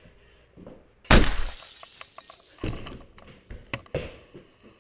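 A sudden loud crash about a second in, trailing off over about half a second, followed by a few smaller knocks.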